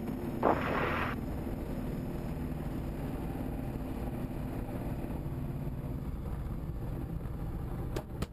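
Diamond light aircraft's piston engine idling steadily on the landing rollout, heard inside the cockpit. There is a brief hiss about half a second in and a sharp click near the end.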